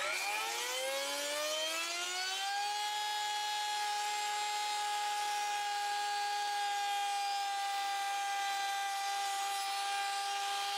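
Bosch router motor winding up to speed, its whine rising in pitch over the first two or three seconds, then running at a steady high pitch as the bit cuts along the top of an old wooden arris rail.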